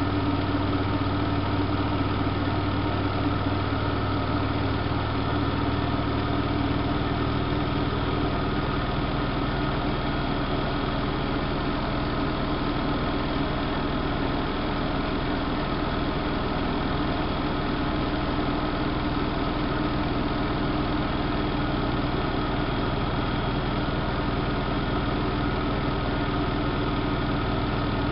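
Siemens Siwamat IQ washing machine running, a steady mechanical hum with constant motor tones; a low part of the hum drops away about eight seconds in.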